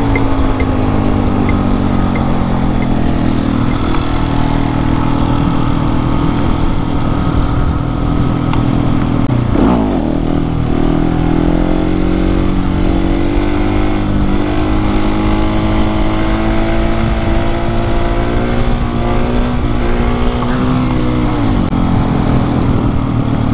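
Husqvarna 701 single-cylinder motorcycle engine running while riding. The engine note drifts up and down, with a quick rev swing about ten seconds in and a sharp fall in pitch near the end as the engine comes off the throttle.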